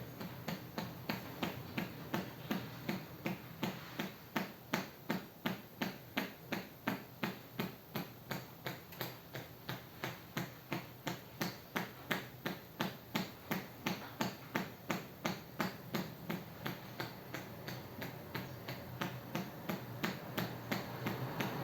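Hands tapping rhythmically on a person's head in a percussion head massage, an even patter of about three strikes a second that grows fainter and less distinct near the end.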